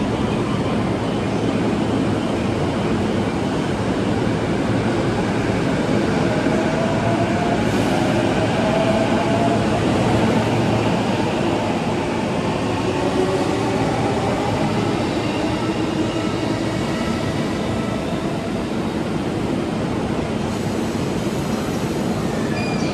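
JR Nambu Line E233-8000 series electric train running past close by: a steady rumble of wheels on rail, with the whine of its traction motors gliding in pitch through the middle.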